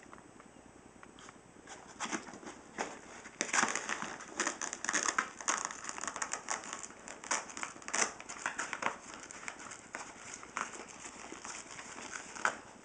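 A chihuahua-whippet mix dog digging and nosing into a fabric messenger bag, the bag rustling and crinkling in irregular bursts. It starts about two seconds in, is busiest a few seconds later, and ends with a sharp crackle near the end.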